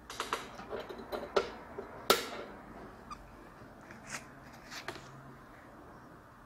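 Small irregular clicks and taps of tweezers and a soldering iron being handled on a navigation unit's circuit board, the sharpest about two seconds in, dying away after about five seconds.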